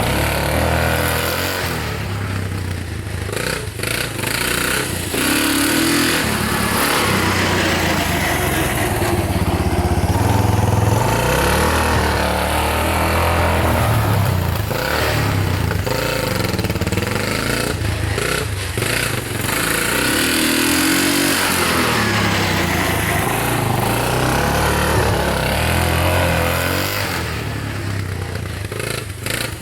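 1983 Kawasaki KLT200C three-wheeler's single-cylinder four-stroke engine running on a test ride after carburetor repair, its pitch rising and falling again and again as the throttle is opened and closed.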